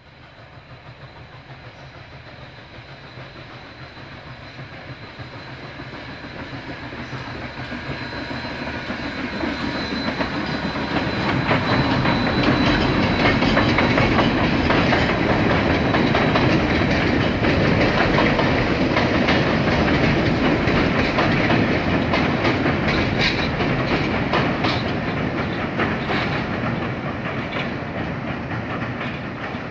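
Southern Railway 630, a 2-8-0 steam locomotive, and its passenger cars crossing a steel girder bridge. The rumble of the train grows louder over the first dozen seconds, then stays loud with the wheels clicking over the rail joints as the cars roll past.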